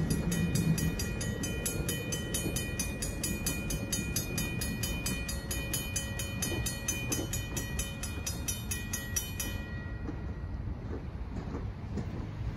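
Railroad grade-crossing warning bell ringing in a fast even rhythm, about five strokes a second, then stopping about three-quarters of the way through. Under it, the low rumble of a passenger train rolling away, fading as it goes.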